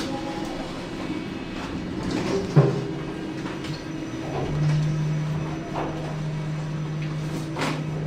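Kone EcoDisc passenger lift: a sliding-door clunk about two and a half seconds in, then a steady low hum from the lift machinery that sets in about halfway through and holds.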